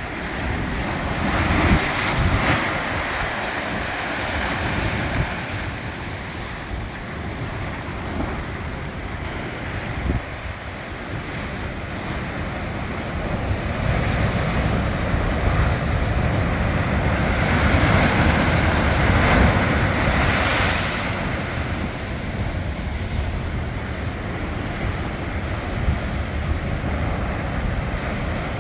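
Pacific Ocean breakers crashing on the shore, a continuous rush of surf that swells about two seconds in and again for several seconds past the middle. Wind buffets the microphone, adding a low rumble.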